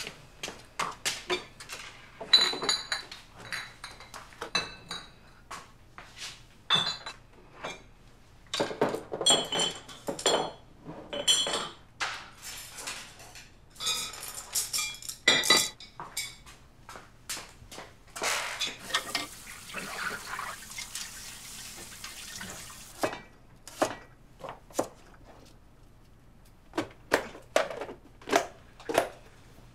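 Dishes, chopsticks and glasses clinking and clattering as they are cleared and stacked, in quick irregular knocks. About two-thirds of the way through, water runs for a few seconds. Near the end come a few duller knocks as plastic food containers are handled.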